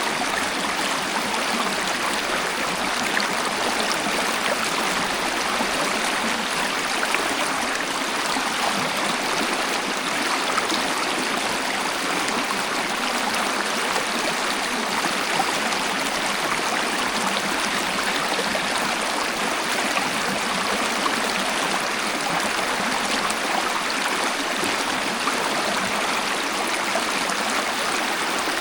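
Waterfall, its water rushing and splashing in a steady, unbroken hiss with no deep rumble.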